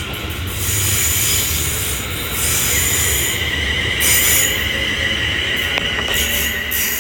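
London Northwestern Railway Class 350 electric multiple unit pulling out of the station: a steady high whine over a low rumble, with hissing that comes and goes.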